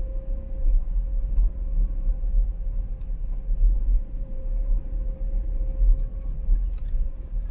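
Low, uneven rumble of a car driving slowly, heard from inside the cabin, with a faint steady whine above it.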